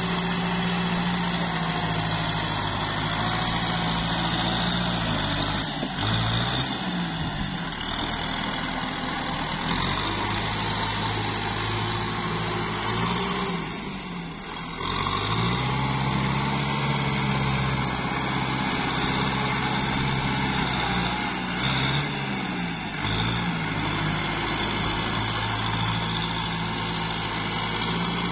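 Kubota tractor's diesel engine running as the tractor pushes a front blade through deep paddy-field mud. The engine note sags and climbs back several times as the revs change.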